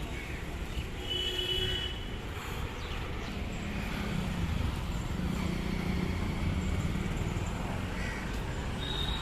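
City road traffic: a steady rumble of passing vehicles, growing louder for a few seconds midway, with short high-pitched tones about a second in and again near the end.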